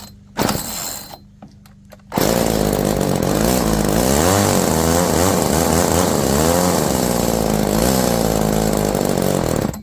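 Chainsaw winch's small two-stroke engine: a short pull on the starter cord near the start, then about two seconds in it fires and runs, rising and falling in speed a few times, and stops shortly before the end. It will not settle to an idle even with the idle screw turned up, which the owner sets out to cure by adjusting the carburetor's high-low mixture screw.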